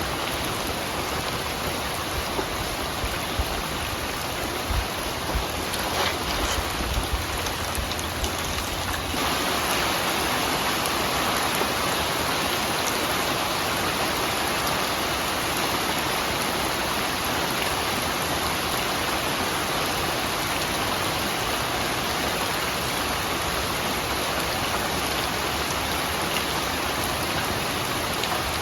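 Steady rain falling, an even hiss with no birdsong. A few low thumps sit under it at first, and about nine seconds in it shifts to a slightly louder, fuller rush.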